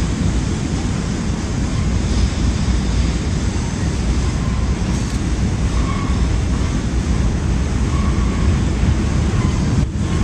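Freight cars rolling over a steel girder railroad bridge: a steady low rumble of wheels on rail, mixed with wind buffeting the microphone.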